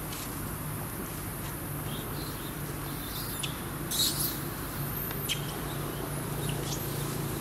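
Steady outdoor hum with a scattering of short, high-pitched animal chirps and squeaks. The loudest comes about four seconds in.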